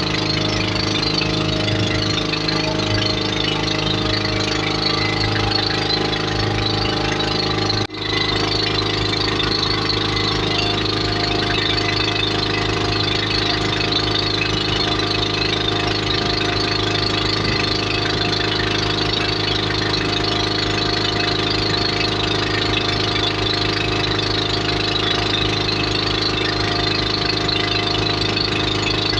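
Motorboat engine running at a steady speed, an even drone with a hiss over it. It cuts out for an instant about eight seconds in, then carries on unchanged.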